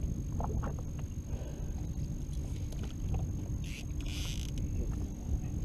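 A boat motor running under steady wind noise on the microphone, with a faint steady hum and two short hissing bursts about three and a half and four seconds in.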